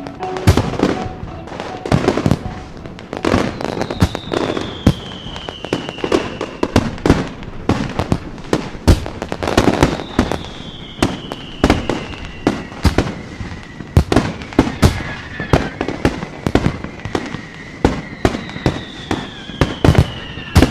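Fireworks going off: a rapid, irregular string of sharp bangs and crackles, with three whistles that slide slowly down in pitch.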